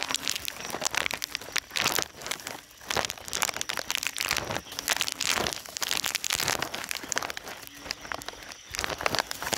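Irregular rustling and crinkling, with a faint short low call recurring a few times.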